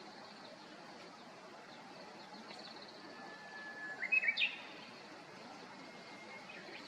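A bird calls once about three seconds in: a held whistle, then a few quick rising notes that are the loudest thing here, over a steady background hiss.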